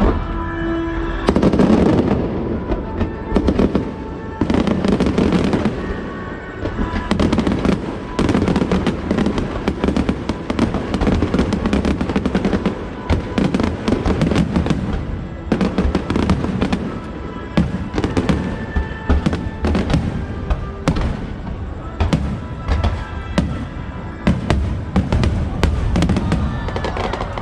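Fireworks bursting and crackling in rapid, continuous volleys, with show music playing underneath.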